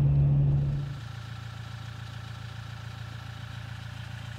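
Engine idling with a loud, steady low hum that drops away suddenly about a second in, leaving a quieter low idle running on.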